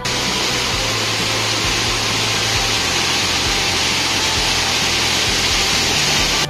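Waterfall pouring down a stepped stone wall and splashing, heard close up as a loud, steady rush of falling water.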